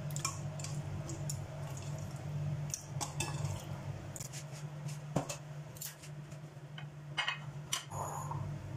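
Raw chicken pieces being put into a dish, with scattered clinks of a utensil against the dish and soft wet handling sounds. A steady low hum runs underneath.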